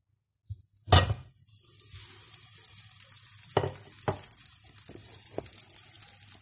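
A single loud thump about a second in as the flipped kefir bread loaf drops into the oiled frying pan, then the oil sizzling steadily under the bread, with a few sharp crackles.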